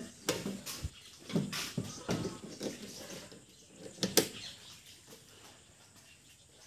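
Irregular clicks and knocks from the metal control cabinet's swing latch handle being worked, with a louder double knock about four seconds in.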